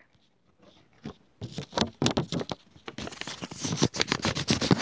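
White paper crinkled and rubbed right up against a wired earbud microphone: a close, dense crackling that starts about a second and a half in and grows busier toward the end.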